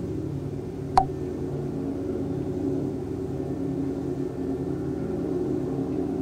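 Steady low mechanical hum, engine-like, made of several fixed tones, with one sharp click about a second in.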